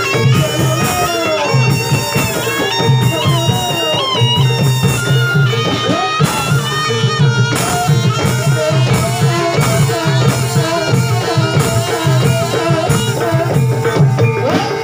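Live Javanese barongan accompaniment music: steady drumming under a wavering, gliding high melody line, as played by a gamelan-style ensemble with a reed pipe.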